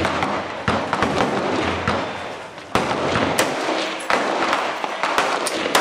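Rifle gunshots on a shooting range: a string of sharp cracks, roughly one a second, with fainter shots in between, each trailing off in an echo.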